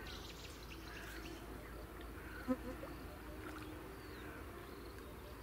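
Flying insects buzzing with a faint wavering hum, with small bird chirps in the background, and one short knock about two and a half seconds in.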